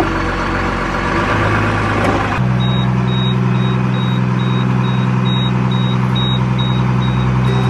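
Sailboat's inboard diesel engine running with a steady drone; from about two and a half seconds in, a high alarm beeps about twice a second over it.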